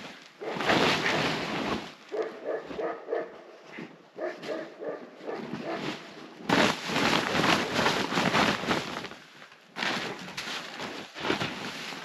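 A dog whining and yipping in short, high pitched cries, between several loud rushing bursts of noise.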